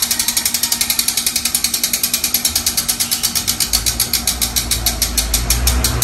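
Quanta fat-bike rear hub freewheeling as the wheel coasts: a loud, rapid ratcheting click that slowly slows as the wheel loses speed. A low hum joins about four seconds in.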